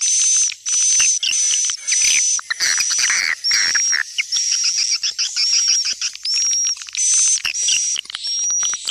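Swiftlet calls: dense, continuous high-pitched twittering with a run of short chirps, about two a second, the kind of swiftlet call recording played to lure swiftlets to nest.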